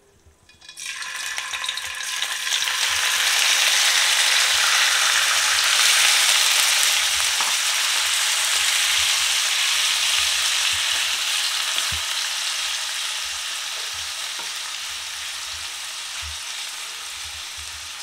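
Marinated chicken sizzling as it goes into hot mustard oil in a kadai. The sizzle starts suddenly about a second in, is loudest a few seconds later, then slowly fades while the pieces are stirred with a wooden spatula, with a few light knocks of the spatula.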